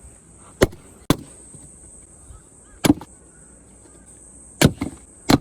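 An axe splitting firewood: five sharp wooden knocks, irregularly spaced, some coming in quick pairs. Faint bird calls and a steady high hiss run underneath.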